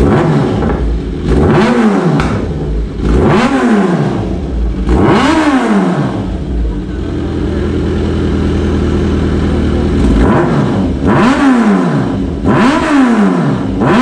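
Kawasaki sportbike engine on a cold start after sitting 15 days, idling while the throttle is blipped into about five short revs that rise and fall, with a steady idle in the middle. It is missing slightly on this cold start, which the owner hopes a new oxygen sensor will cure.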